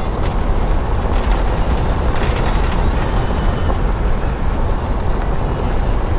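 A vehicle driving on a dirt road: a steady low rumble of engine and tyres on the unpaved surface.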